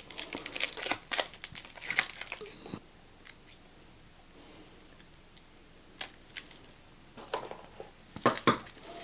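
A steel jubilee watch bracelet being handled: its links clicking and rattling together, with some crinkling. The clicks come in two clusters, the first lasting about three seconds and the second starting about six seconds in, with a quiet stretch between.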